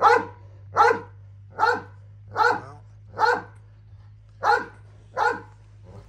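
Cane Corso barking repeatedly at a decoy it holds at bay on the ground: a guard bark in a hold-and-bark exercise. Seven barks, about one every 0.8 seconds, with a slightly longer pause just past the middle.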